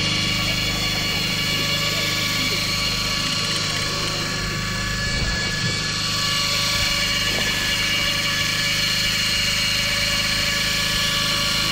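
A boat's engine running steadily at a constant speed, a level droning hum with several steady tones.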